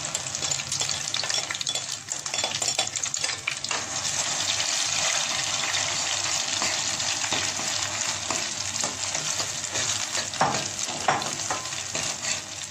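Egg and bread batter frying in hot ghee in a steel pot, sizzling steadily while a spatula stirs it, with a few sharper scrapes of the spatula about ten seconds in.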